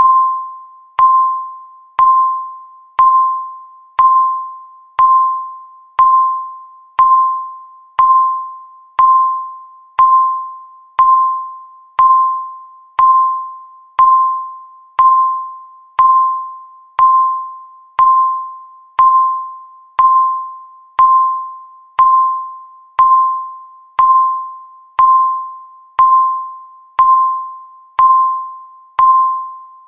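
Countdown timer's electronic tick sound: a short, clear pitched ding once a second, each one struck sharply and fading quickly, marking each second of the countdown.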